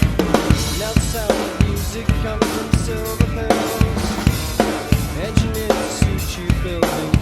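Rock drum kit played along to a band recording, with kick drum, snare and rimshot strikes in a steady groove under a sliding melodic guitar line and bass.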